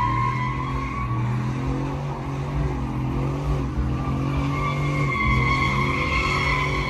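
A car doing a burnout: the engine is held at steady revs while the spinning rear tyres squeal in a high, steady tone. The squeal fades about a second in and comes back strongly from about four seconds.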